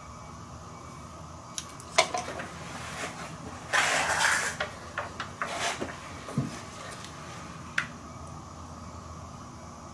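Hands handling a multimeter test lead and plastic ignition-coil connectors in an engine bay: scattered clicks and small knocks, with a short scraping rustle about four seconds in.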